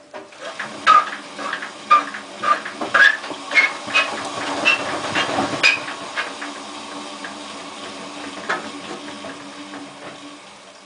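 Hotpoint Ultima WT960 washing machine clanking and knocking, sharp ringing metal knocks about twice a second for several seconds over a steady low hum that then carries on more quietly; the owner believes the drum bearings are gone.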